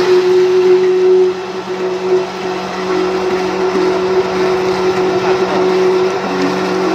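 NS80 3-inch self-priming water pump driven by a three-phase induction motor, running steadily with a constant hum over a rushing hiss as water pours from its outlet.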